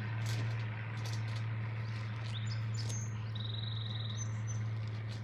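Small birds chirping, with a quick buzzy trill a few seconds in, over a steady low hum.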